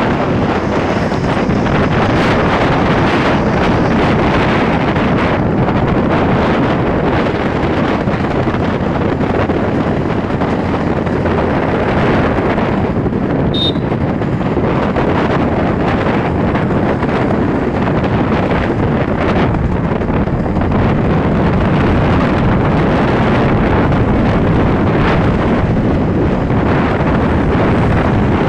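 Loud, steady wind rushing over the microphone of a vehicle moving along an open road, with vehicle and road noise underneath. A brief high chirp sounds near the middle.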